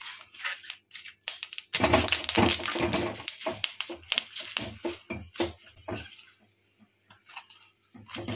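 Oiled banana leaf pressed and rubbed with a cloth against a hot steel kadai: irregular rustling and scraping strokes, busiest from about two to six seconds in. The leaf is being seared to soften it so it can be folded without splitting.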